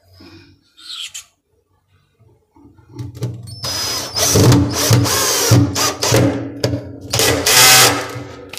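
Cordless drill driver driving a screw into a kitchen cabinet's side panel to fix a basket slide channel. It runs in two goes: a long one starting about three seconds in, then a shorter one near the end, after a few light handling clicks.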